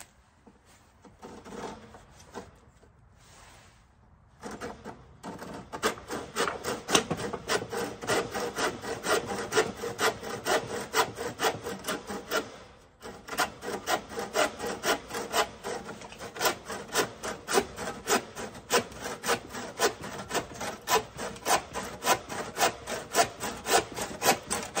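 Handsaw cutting through the end of an Osage orange bow stave: a few slow starting strokes, then steady rapid back-and-forth strokes, about three a second, with a brief pause about halfway through.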